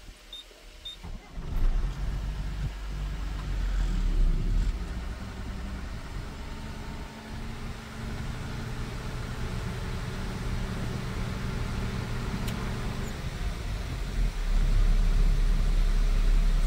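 Tata truck's diesel engine running and road noise heard inside the cab as the truck drives along; the low rumble grows louder near the end.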